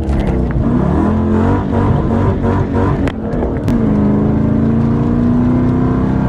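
Straight-piped Dodge Challenger R/T V8 exhaust under acceleration, its note rising and falling with the revs. A little past halfway the pitch drops sharply, then climbs slowly and steadily.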